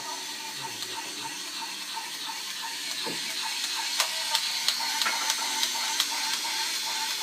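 Electronic Kamen Rider Wizard toy sounding a steady pulsing beep over a hiss. About halfway through comes a run of plastic clicks, roughly three a second, as the toy is worked by hand.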